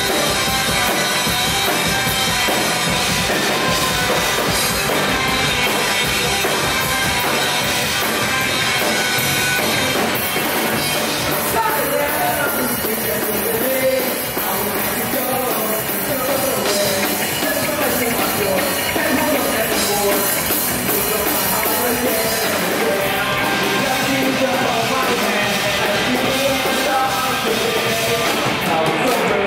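Rock music with singing and a drum kit, played loud and steady throughout.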